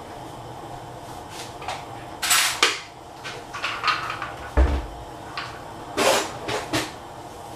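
Cookware and utensils being handled in a kitchen: a string of knocks and short clattering rattles, with one dull thump about halfway through, over a steady background hum.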